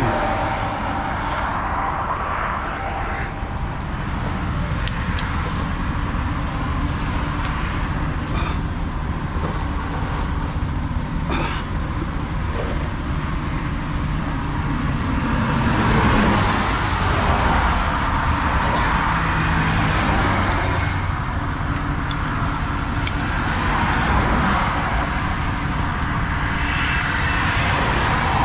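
Steady interstate highway traffic noise: vehicles rushing past, swelling louder about halfway through and again near the end, with a few light clicks.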